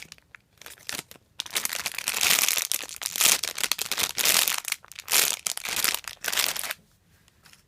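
Plastic packaging crinkling as a cake-roll squishy toy is squeezed and handled, in dense irregular rustling bursts that stop shortly before the end.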